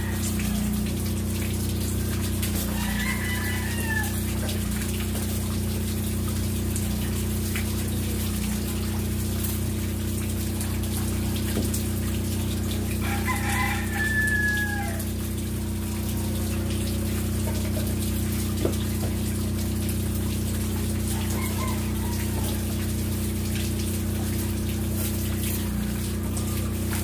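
A rooster crowing three times, a few seconds in, near the middle and about three-quarters through, over a steady low machine hum. Faint clicks and scrapes of a dustpan and stick working in a muddy drain.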